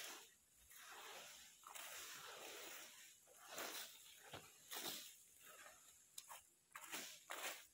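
Long-handled brooms sweeping dry, fallen rubber-tree leaves. Each stroke makes a faint, rustling scrape, and the strokes come at uneven intervals about every half second to second.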